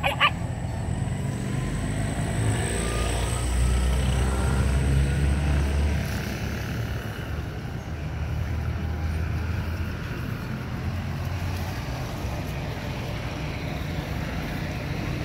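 Steady low rumble of a motor vehicle's engine running, with a faint rising whine over the first few seconds. It is heaviest from about three to six seconds in.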